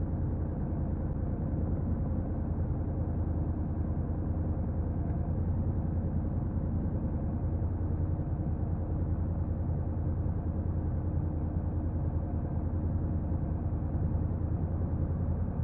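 Honda NC750X's parallel-twin engine running steadily at an even engine speed, with no revving.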